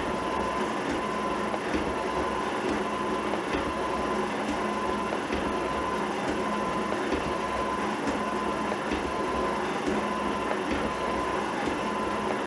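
G&E metal shaper running, its ram stroking back and forth as it takes a light cleanup pass with a high-speed steel tool, with a steady hum under the motor noise. It shuts off right at the end.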